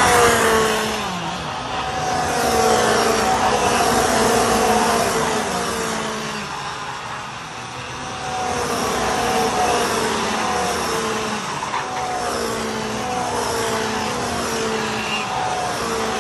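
Several two-stroke racing kart engines running at high revs as karts lap past; one note drops in pitch as a kart passes close near the start. The engine notes then come in short repeated pulses at about the same top pitch, the engines running into their rev limiters.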